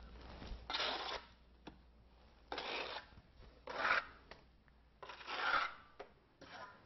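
Trowel scraping over thin-set mortar and membrane at a shower-tray corner: four separate rough rubbing strokes, each about half a second long, spaced roughly a second apart.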